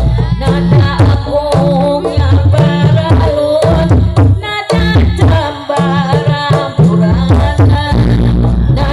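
Live kuda lumping ensemble music: hand drums beat a fast, busy rhythm with a wavering melody line sung or played over it.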